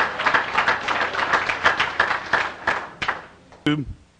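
Audience applauding, dense overlapping clapping that dies away about three seconds in.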